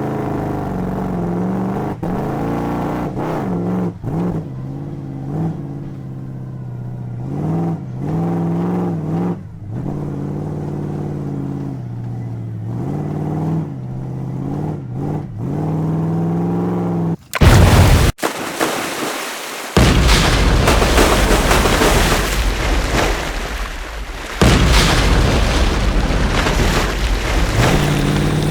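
Monster truck engine sound effects revving up and down, then a sudden loud boom about 17 seconds in followed by a long noisy rumble.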